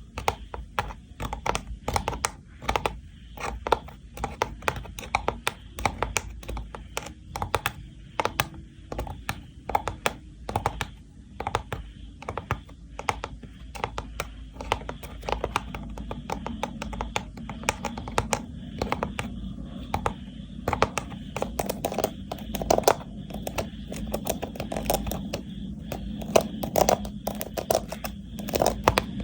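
Rattan box tapped and handled by hand for ASMR: a quick, irregular run of sharp clicks and taps on the woven cane.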